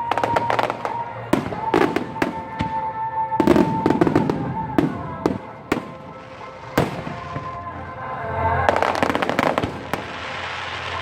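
Aerial fireworks bursting in quick succession, sharp bangs in clusters and a stretch of dense crackling near the end, over music playing through loudspeakers.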